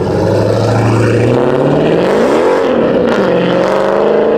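A car engine revving: it idles low and steady, climbs quickly in pitch about two seconds in, drops back, and settles at a faster steady run.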